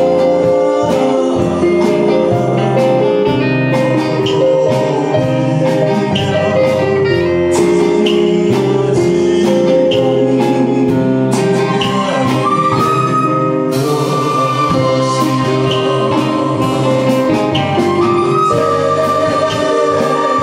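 A male vocalist singing a ballad with a live Chinese orchestra accompanying him: bamboo flutes, bowed strings and keyboards over a steady beat.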